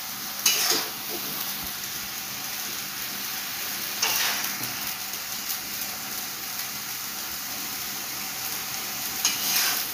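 Vegetable curry sizzling steadily in a black kadai on the stove, with a steel spatula scraping it out into a bowl about half a second in, around four seconds in and again near the end.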